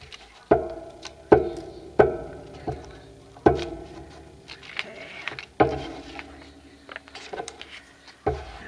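A glue stick being rubbed over paper on a tabletop, with about six sharp knocks on the table at irregular intervals, each ringing briefly, and paper rustling between them.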